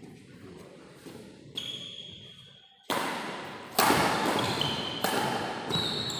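Badminton rackets striking a shuttlecock and shoes squeaking on the court floor during a rally, echoing in a large hall. About three seconds in, a louder rush of noise sets in, with the sharpest hit coming shortly after.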